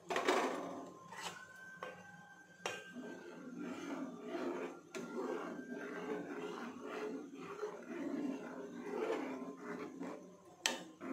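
A steel ladle stirring thick milk payasam in a pot, with repeated scraping strokes against the pot. A sharp knock at the start and a clink near the end.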